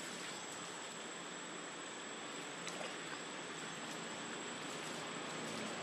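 Steady outdoor background noise, a soft even hiss, with a thin high steady whine above it and no distinct event.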